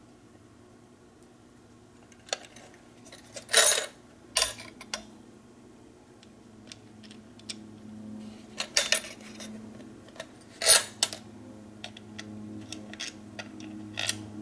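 Metal screws, nuts and a screwdriver clicking and clinking against the antenna's plastic bracket and aluminum elements as they are handled and fitted. Scattered light clicks with a few sharper clinks, the loudest about three and a half seconds in and again near eleven seconds.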